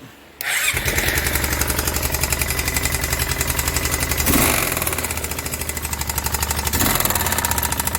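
Kawasaki Prairie 360 ATV's single-cylinder engine starting about half a second in and running with its clutch removed, with a fast even beat and two short revs, around the middle and near the end. A knock is still in it, which the owner takes to be probably the crankshaft.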